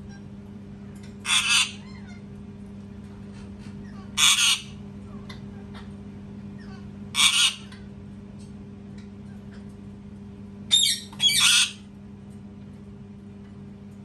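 A male ring-necked parakeet screaming: short, harsh, loud screeches about every three seconds, five in all, the last two close together. A steady low hum runs underneath.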